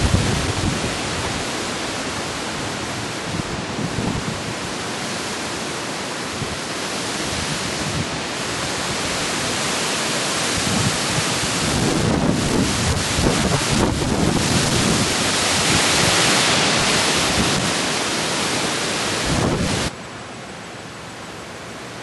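Strong gusting wind from Hurricane Ike's remnants, rushing through trees and buffeting the microphone with low rumbles. It swells louder past the middle, then drops suddenly near the end to a quieter steady rush.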